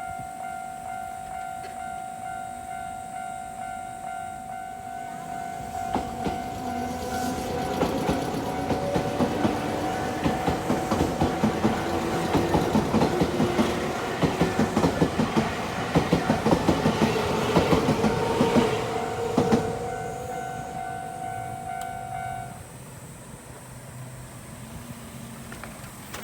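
A Japanese railway level-crossing warning bell rings in a steady repeating ding while a Nankai Koya Line electric train passes over the crossing, its wheels clacking over the rail joints, from about six seconds in until about twenty seconds in. The bell stops shortly after the train has cleared.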